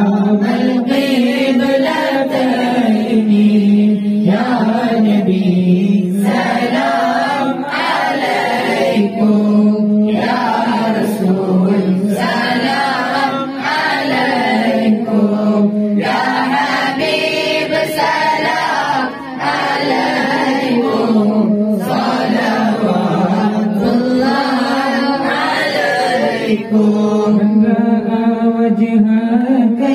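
A group of men and boys chanting a mawlid together in unison, led by a voice on a microphone: one swaying melody sung in long phrases with short breaths between them.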